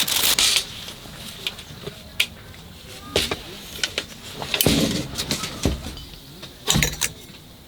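Irregular knocks, clicks and rustles of objects being handled and set down, with a few louder clatters.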